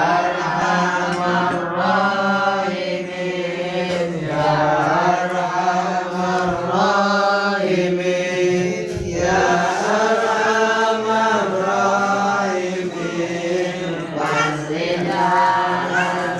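A group of boys chanting nadhom, rhymed Arabic verse, together in unison to a steady sung melody, with brief pauses between lines.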